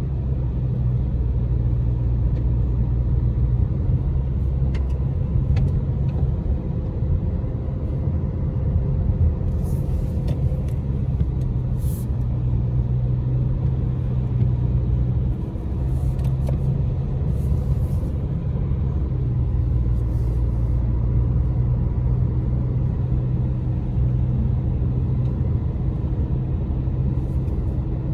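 Car interior noise while driving: engine and tyres give a steady low rumble, with a few faint high clicks through the middle.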